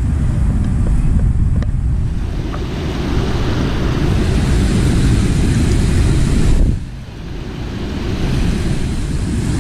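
Wind buffeting the microphone over the steady rush of water spilling over a low weir. The wind rumble drops away briefly about seven seconds in, then builds again.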